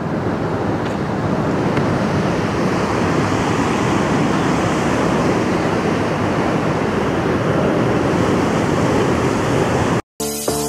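Steady ocean surf with wind noise on the microphone. It cuts off abruptly near the end.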